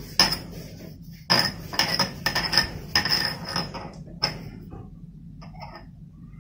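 Light, sharp clinks with a short high ring, in quick runs for about four seconds and then only a few faint ticks, from hands working and pinching off small portions of semolina dough on a granite counter.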